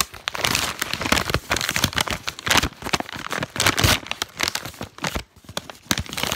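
Plastic postal bag crinkling and rustling as it is handled, a dense run of irregular crackles.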